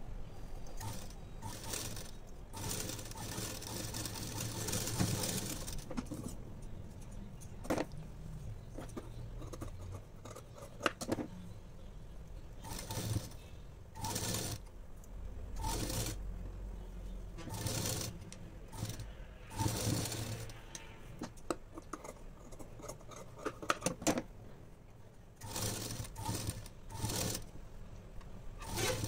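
Black straight-stitch sewing machine stitching fabric in several runs, a longer one in the first few seconds and shorter ones later, with pauses in between filled by clicks and the handling of the cloth.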